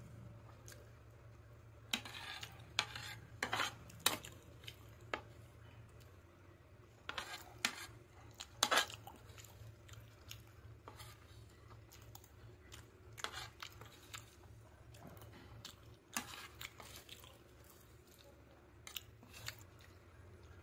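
A metal spoon clinking and scraping against a plate as the last pasta is scooped up, with close-up chewing, in scattered sharp clicks of uneven strength over a low steady hum.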